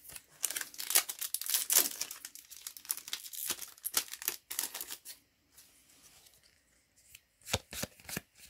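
A Yu-Gi-Oh! booster pack's foil wrapper being torn open and crinkled, a dense crackling over the first five seconds. Near the end come a few sharp clicks as the cards are handled.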